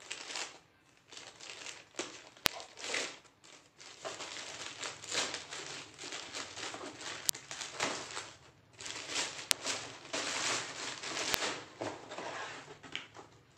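Plastic courier mailer bag crinkling and rustling as it is cut open with scissors and handled. There are four sharp clicks along the way.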